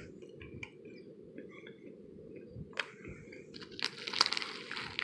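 A person chewing and crunching spicy peanuts, with small crunches throughout; about three and a half seconds in, a snack packet crinkles loudly for about a second.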